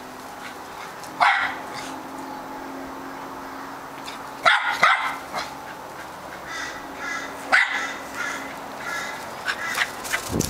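Australian Terrier barking in short volleys of a few sharp, high barks, with pauses of a couple of seconds between volleys.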